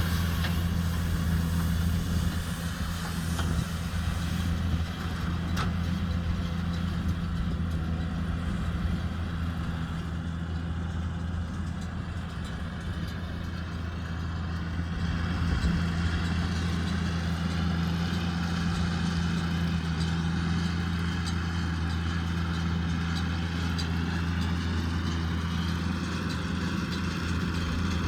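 JCB Fastrac 2170 tractor engine running steadily while driving a Fusion 2 integrated baler-wrapper through rice straw. It is a continuous low drone that eases slightly about halfway through and then picks up again.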